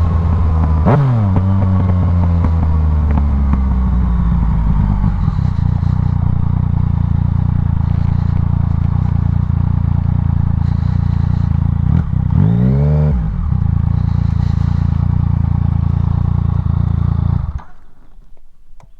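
Yamaha MT-09's inline-three engine through a Black Widow full exhaust, its pitch falling as it slows to idle, with a sharp throttle blip about a second in. It idles steadily, is revved once more about two-thirds of the way through, and then is switched off shortly before the end.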